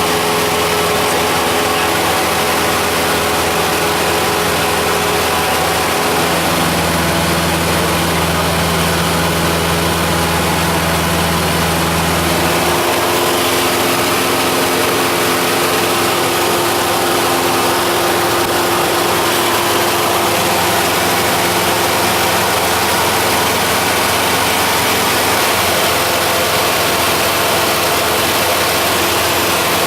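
Cessna 172's piston engine and propeller droning steadily in flight, heard from inside the cabin; the engine note shifts about twelve seconds in.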